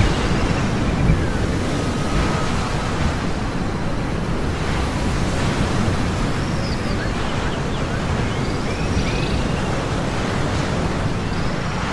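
Steady rushing noise of ocean surf, with a few faint, short, high calls rising and falling over it now and then.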